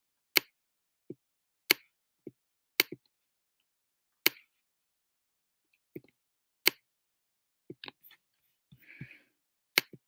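Sharp clicks at irregular intervals, roughly one a second, with fainter knocks between them, from a mouse or stylus as a word is handwritten stroke by stroke on a computer screen.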